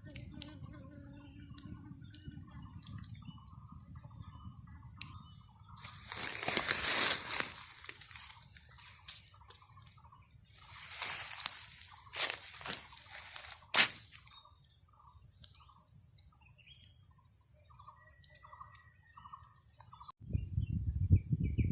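Steady high-pitched drone of insects (crickets or cicadas) with faint, repeated short bird notes. A few brief rustling noises come in the middle, and a single sharp click comes about two-thirds of the way through.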